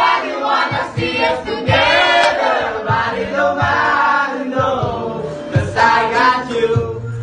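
A pop song: singing over a backing track with a steady beat.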